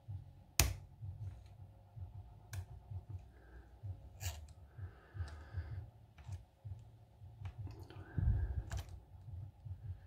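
Hook pick working the pin stack of an American Lock 1100 padlock: a series of sharp, crisp clicks as serrated pins and spools catch and set, the loudest about half a second in, with faint scraping of the pick between them and a dull thump a little after eight seconds.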